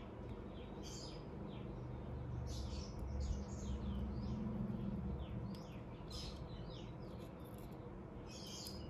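Small birds chirping in quick runs of short, falling notes, again and again. Beneath them a low rumble swells in the middle and is the loudest sound.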